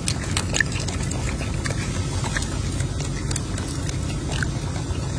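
Golden snub-nosed monkey eating a peeled boiled egg: small irregular clicks of biting, chewing and eggshell handling over a steady low rumble.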